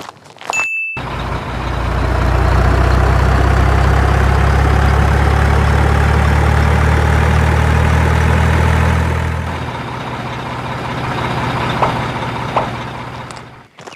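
Mini tractor engine running at a steady low note, starting about a second in, easing to a quieter, lower-pitched run about nine and a half seconds in, then cutting off abruptly just before the end.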